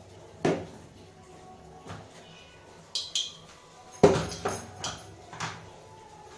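Clatter of plastic kitchenware on a stone counter: a sharp knock about half a second in, two quick clicks near three seconds, then the loudest cluster of knocks and rattles around four seconds as a round plastic spice box is handled and its lid taken off.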